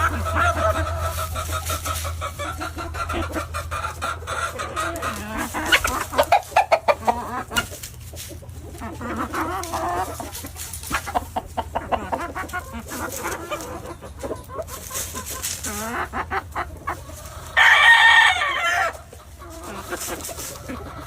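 Gamefowl roosters crowing, with hens clucking between the crows. One crow is held long near the start, and a short, loud crow comes near the end.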